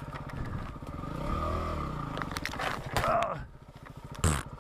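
Yamaha WR250R's single-cylinder four-stroke engine running at low revs, rising once and falling back, while branches and brush scrape along the bike and rider. Several sharp snaps and slaps, the loudest near the end, as branches hit.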